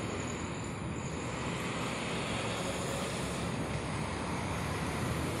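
Steady outdoor road-traffic noise, a constant hiss and rumble, with wind on the phone's microphone.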